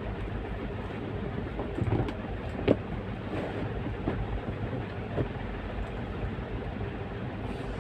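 Steady low rumble with a few short knocks and clicks as a boxed set of glass bowls is handled and tugged at in its packaging, the sharpest knock a little under three seconds in.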